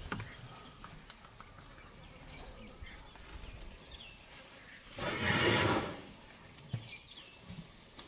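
African bush elephant giving one loud trumpet call, about a second long, a little past the middle. Faint bird chirps sound around it.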